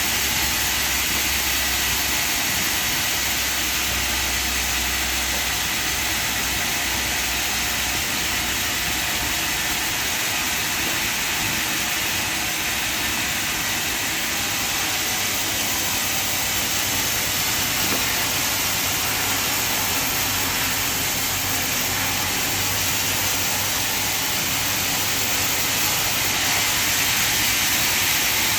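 Band sawmill running, a steady loud hissing whir with a low machine hum underneath that shifts about six seconds in and again around the middle.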